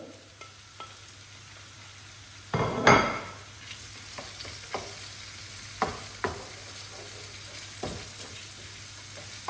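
Diced salmon and zucchini frying in oil in a pan, stirred with a wooden spatula: a steady sizzle, a louder burst about three seconds in, and a few short knocks of the spatula against the pan.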